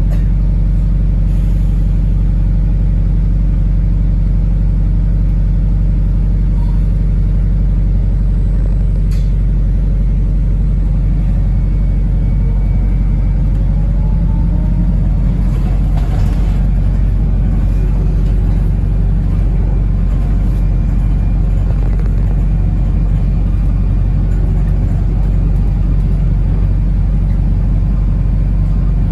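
Wrightbus New Routemaster (NB4L) hybrid double-decker bus on the move, heard from inside: a steady low hum and rumble from its drivetrain and the road, with faint rising whines around the middle.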